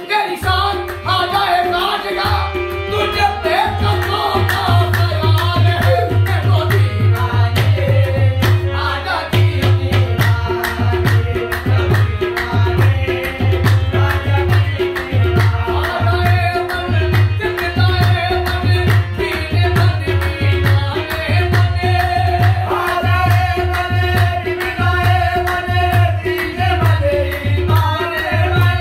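Qawwali: a harmonium and tabla accompany male singing, the tabla keeping a steady beat under a held harmonium tone.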